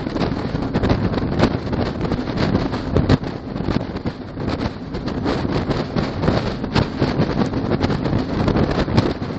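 Wind buffeting the microphone in uneven gusts on top of a truck being hauled at highway speed, with the rumble of the moving rig underneath.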